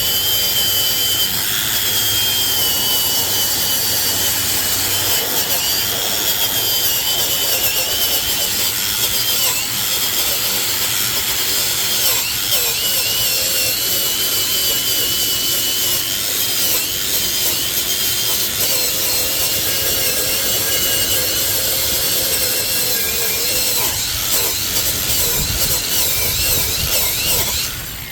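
Angle grinder running continuously, grinding rust and corrosion off a cast-iron brake rotor, its high whine wavering as it is pressed against the metal. It stops near the end.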